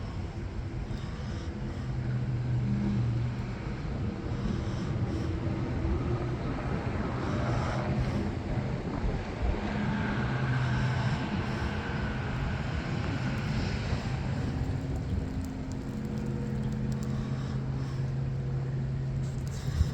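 Low engine hum that swells and fades several times over a steady outdoor rumble, like motor vehicles passing.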